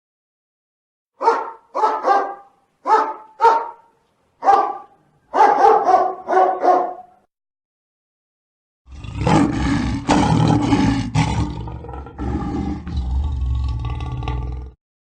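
A dog barking about ten times in quick, separate barks. After a pause it is followed by a low, rough growl or roar lasting about six seconds.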